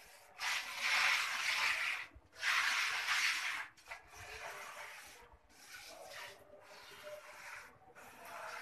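Hose-fed spray lance hissing as termiticide is sprayed into kitchen cabinets, in bursts. Two strong bursts of about a second and a half each come in the first four seconds, then a run of fainter, shorter bursts with brief pauses between them.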